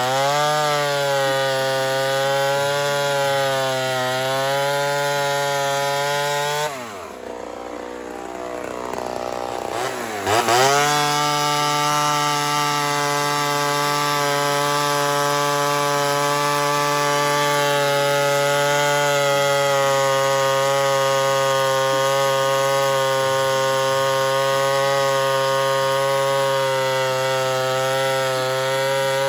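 Ported Homelite Super XL Auto two-stroke chainsaw, fitted with a larger Super XL 925 carburetor, running at full throttle while cutting through wood, its note sagging a little under load. About seven seconds in the throttle drops off and the engine falls away for a few seconds, then revs sharply back up and holds high and steady in the cut.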